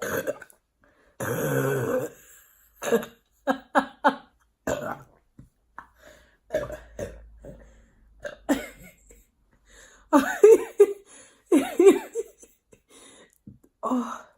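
A woman burping again and again from a bellyful of fizzy drink, with short cough- and throat-clearing sounds in between. It starts with a long burp about a second in, followed by a string of short bursts.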